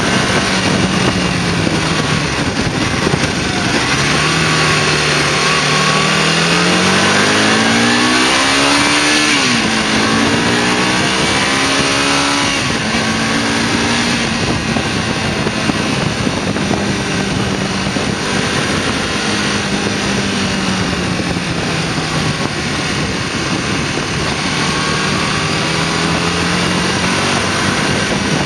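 Motorcycle engine heard from the rider's seat over heavy wind rush. About four seconds in it pulls up through the revs, drops sharply at a gear change, climbs again and shifts up once more a few seconds later, then cruises at a fairly steady speed.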